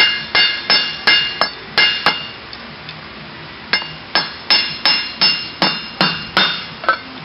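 Small hammer tapping a metal tool against the case cover of a 2004 Mini Cooper CVT transmission, with quick, evenly spaced ringing metallic taps about three a second and a pause of about a second and a half midway. The taps are loosening the cover so it can be lifted off.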